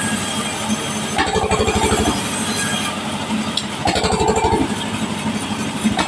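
Engine-driven sawmill band saw ripping lengthwise through a timber beam. The engine's fast, low beat comes and goes in surges every two seconds or so, with a steady whine from the running blade.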